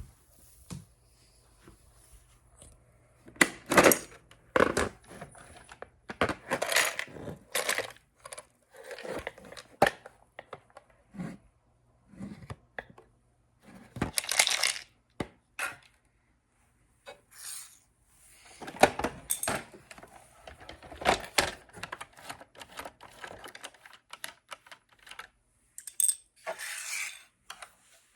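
Small plastic LEGO bricks clattering and rattling in irregular bursts, with short quiet gaps between.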